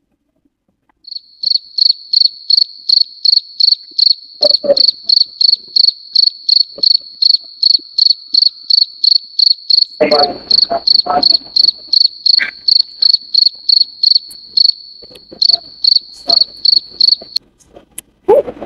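Cricket chirping in a rapid, even pulse of about four high chirps a second, loud, starting about a second in and stopping shortly before the end. About ten seconds in, crunching of freeze-dried candy being chewed.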